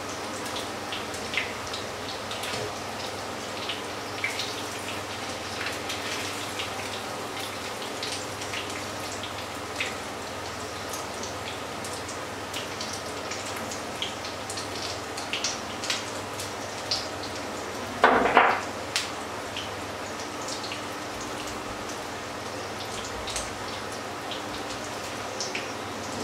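Fritters frying in shallow hot oil in a pan: a steady sizzle with many small crackling pops. About two-thirds of the way through there is one short, louder clunk.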